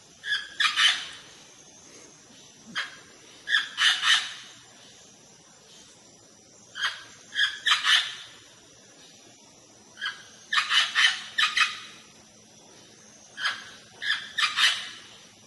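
A parrot calling: short calls in clusters of two to four, a cluster coming roughly every three to four seconds.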